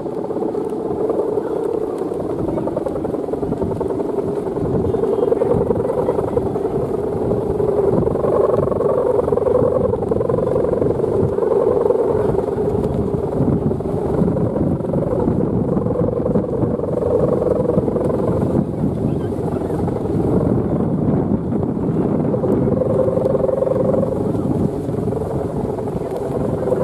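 Steady wavering hum of the guangan, the bamboo bow hummer strung across the top of a red Balinese bebean kite flying in the wind, with rough wind noise underneath.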